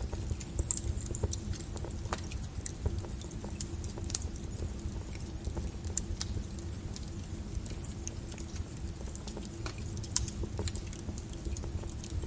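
Fire crackles, irregular sharp pops and snaps of varying strength, over a steady low brown-noise rumble with a faint steady hum.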